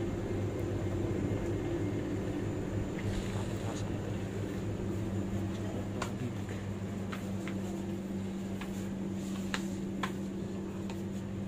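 Steady low machine hum, with scattered light clicks and knocks from about three seconds in.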